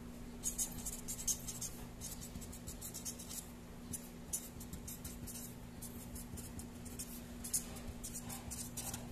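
Marker pen writing on paper: quick clusters of short, high scratchy strokes as letters are drawn, over a steady low hum.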